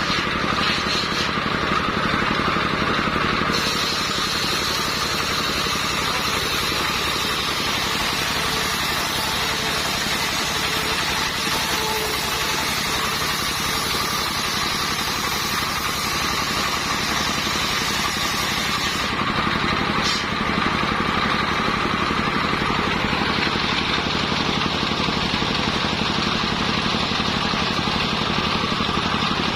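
Engine-driven circular sawmill running steadily, with a bright hiss layered over the engine sound from a few seconds in until about two-thirds of the way through.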